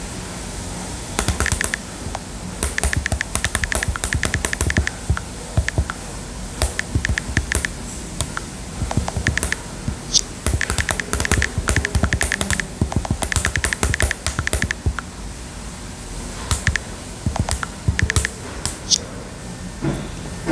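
Long gel fingernails tapping on an iPad's glass touchscreen while typing a message: quick runs of light clicks, broken by short pauses.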